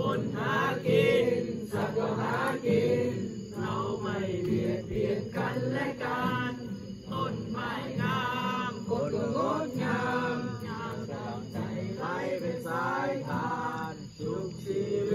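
Voices chanting: a continuous melodic chant line that rises and falls with short breaks.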